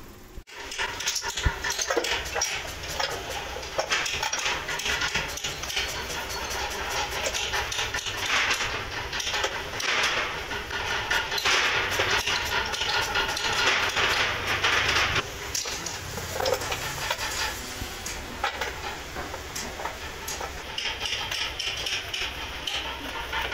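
Hand sanding of carved wooden pieces clamped in a row in a jig: a wooden sanding block is rubbed back and forth over them in repeated rough scratching strokes, with frequent knocks of wood on wood.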